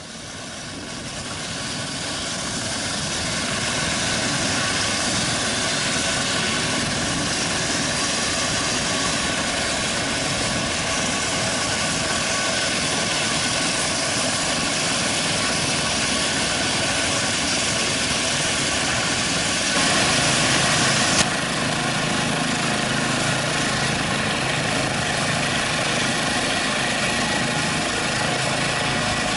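Eurocopter EC135 air-ambulance helicopter running at ground idle, a steady turbine whine and rotor rush that fades in over the first few seconds. There is a brief louder stretch ending in a click about two-thirds of the way through.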